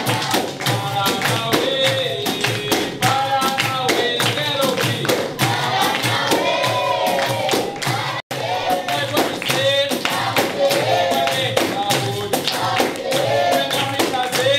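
A group singing a capoeira song over a steady beat of hand percussion, with tambourine strikes heard. The sound drops out for an instant a little over eight seconds in.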